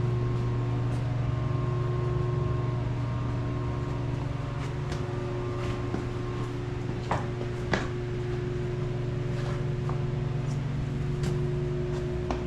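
Shop heater running with a steady fan hum, plus a few light clicks and knocks, the clearest about seven and eight seconds in.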